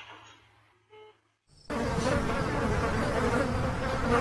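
A short pitched beep about a second in, then a loud steady insect-like buzzing that starts abruptly just before two seconds in.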